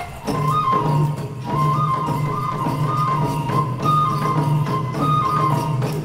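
Japanese folk dance music: a bamboo transverse flute plays a repeating stepping melody over regular drum beats.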